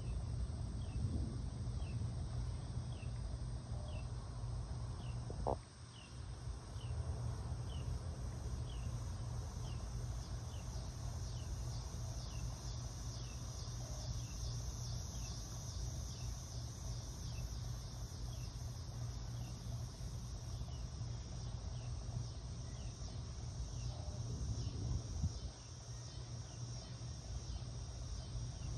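Insects trilling steadily, with a short falling chirp repeated about every three-quarters of a second and a steady low rumble underneath; a single knock about five and a half seconds in.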